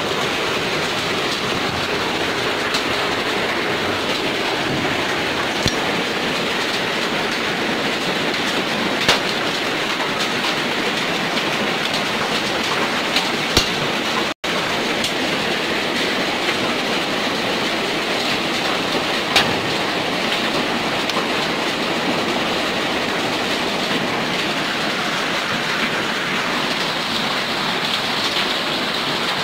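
Heavy rain and hail pelting down in a steady loud rush, with a few sharper cracks of single hailstones striking. The sound drops out for an instant about halfway.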